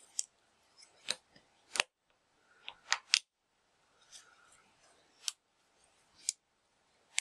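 Small sharp clicks and taps, about nine at irregular spacing, from handling laser-cut wooden printer parts and small M3 bolts and nuts on a tabletop.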